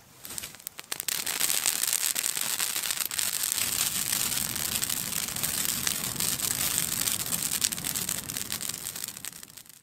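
Campfire of dry firewood and burnable garbage burning hard, crackling with a dense run of pops over a steady hiss. It builds within about a second and fades just before the end.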